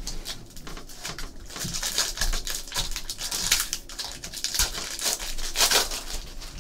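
Foil Topps trading-card pack wrapper crinkling and crackling in the hands as it is handled and opened.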